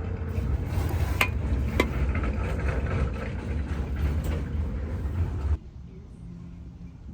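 Steady low rumble with scattered clicks and rattles, cutting off abruptly about five and a half seconds in, after which a faint steady hum remains.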